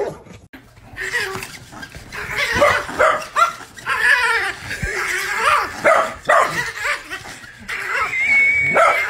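Small dog yipping and barking in quick, excited bursts, play-barking as it lunges at a lint roller, with a higher held note shortly before the end.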